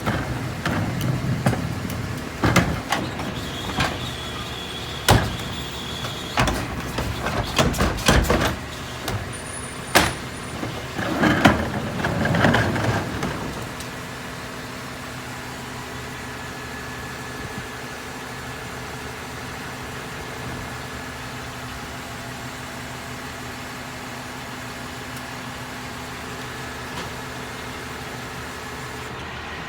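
Mini New Way rear-loader garbage truck working: a run of bangs and clatter through the first half, with a high whine for a couple of seconds near the start, then the truck running steadily.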